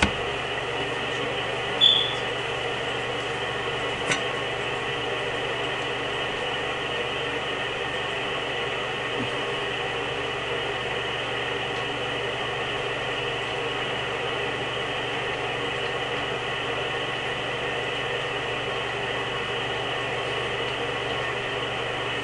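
Steady background hum and hiss with a few held tones, like a fan or other running appliance. One brief high squeak about two seconds in, and a soft click about two seconds later.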